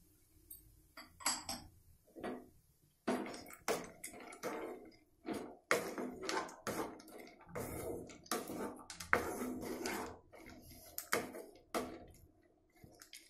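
Wooden spatula stirring and tossing boiled red gram, peanuts and onion in a metal kadai: irregular scraping and clattering strokes, dying down near the end.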